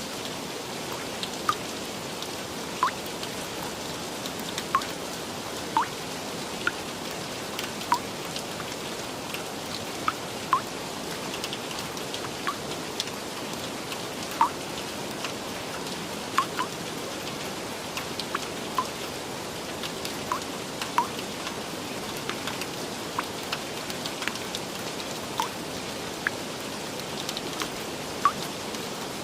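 Steady rain falling, with individual heavy drops plinking sharply and close by, about one or two a second, over the even hiss.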